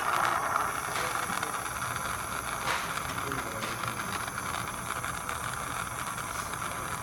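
Handheld blow torch flame hissing steadily as it heats a copper fitting on a shower valve up to solder-melting temperature for sweating the joint. A couple of faint ticks sound about one and three seconds in.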